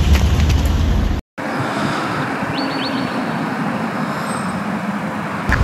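Outdoor street ambience: a steady hiss of distant road traffic, breaking off for a moment about a second in. Two short high chirps sound in the middle.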